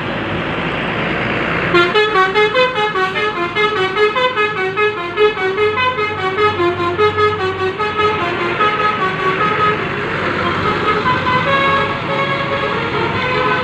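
A bus's 'telolet' horn, a set of musical air horns, playing a quick tune of short stepping notes. It starts about two seconds in, over engine and traffic noise.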